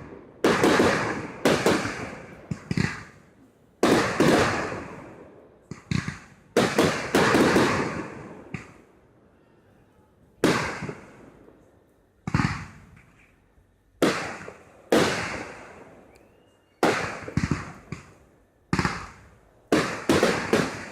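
Fireworks bursting overhead one after another: about twenty sharp bangs, each trailing off over a second or two, some coming in quick pairs, with a couple of short lulls between volleys.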